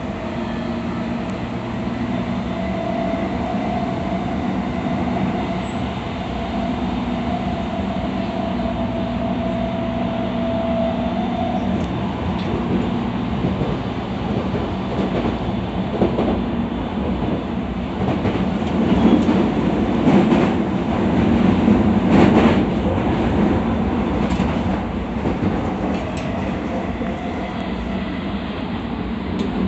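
E217 series electric train running at speed: steady traction-motor hum over wheel and rail rumble. About twelve seconds in the hum gives way to a louder, rougher rumble with repeated clicks of the wheels over rail joints, which eases off near the end.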